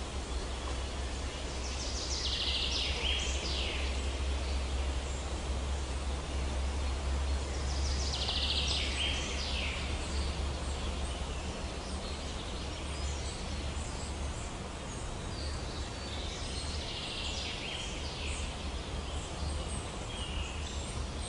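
A songbird sings a short falling phrase three times, several seconds apart, over steady outdoor background noise with a low rumble.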